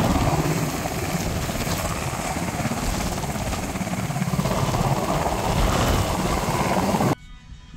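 Military helicopter hovering low overhead, its rotor and engine noise loud and steady; the sound cuts off abruptly near the end.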